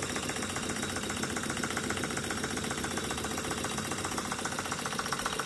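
Jensen 55 toy steam engine running steadily, belt-driving a small model generator, with a rapid, even beat.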